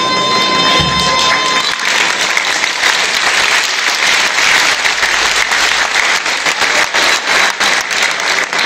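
The folk band's last held note dies away in the first second or two, then an audience applauds steadily.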